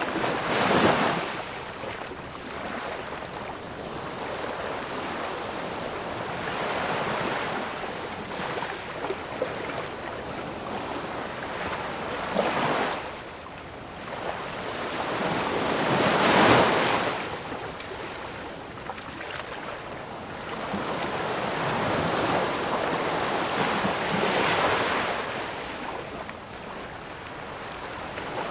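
Ocean surf: waves breaking and washing up the shore in a continuous rush. The biggest breakers swell up and fall away about a second in, twice near the middle, and once more near the end.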